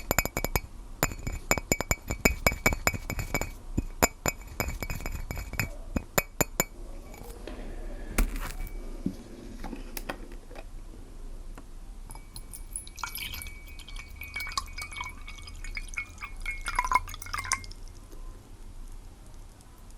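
Glass clinking rapidly and repeatedly with a bright ringing, stopping about seven seconds in. Then water dripping and trickling with small bubbling pops.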